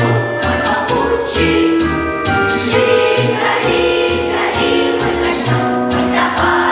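A choir singing a song in unison over a backing track with a steady beat.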